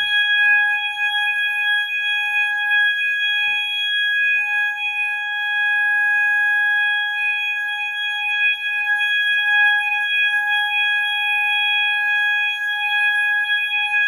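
System Sensor MASS multi-tone sounder-strobe sounding a loud, steady, unbroken alarm tone, set off by a pulled fire alarm pull station.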